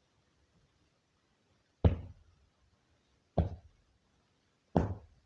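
Three sharp knocks, evenly spaced about a second and a half apart, each with a short ringing decay.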